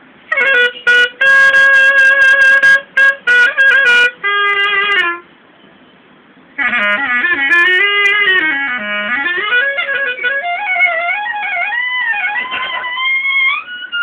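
Solo clarinet playing an alap. A first phrase of short, repeated notes around a held note is followed by a brief pause about five seconds in. Then a longer phrase of sliding, bending notes dips low and climbs back up.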